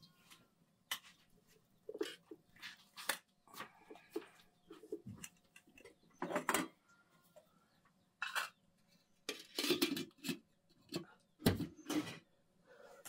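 A metal spoon clinking and scraping in a small metal bowl, with pots and kitchen things knocked and set down: a string of irregular clinks and knocks over a faint steady hum.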